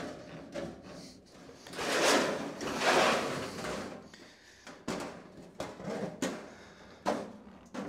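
Aviation snips cutting 26-gauge galvanized sheet steel in short clicking bites around a tight-radius round hole, using only a small part of the blades. About two seconds in, there is a louder stretch of thin sheet metal rattling as the cut flap is bent and handled. Near the end come several more quick snip cuts.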